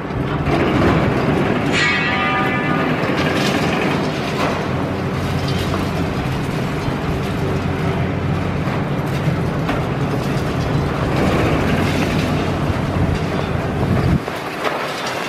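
Demolition excavator's diesel engine and hydraulics running steadily under load as its hydraulic crusher jaw bites into reinforced concrete, with concrete cracking and breaking throughout. A brief high squeal comes about two seconds in.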